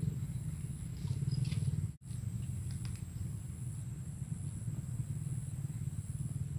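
A steady low rumble that breaks off for an instant about two seconds in, with a few faint high chirps near the start.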